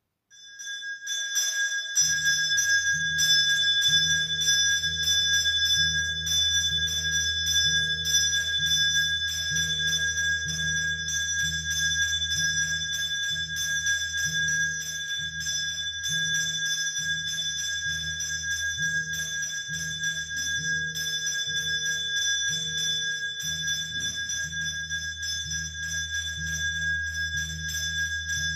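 A bell rung rapidly and without pause for a temple arati, its ringing steady. A low pulsing beat joins about two seconds in.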